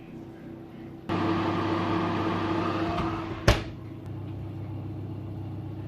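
Oven running with a steady hum that starts abruptly about a second in, and a single sharp clunk a little past the middle, after which the hum continues quieter.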